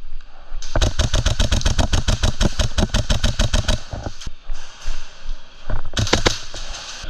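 HPA airsoft rifle firing full-auto: a burst of about three seconds at roughly ten shots a second, then a second short burst near the end.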